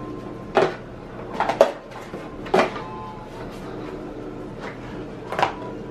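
White plastic storage bins being handled and set down on a stack on a countertop: a few sharp knocks of plastic on plastic, spaced out, one of them doubled and the last near the end.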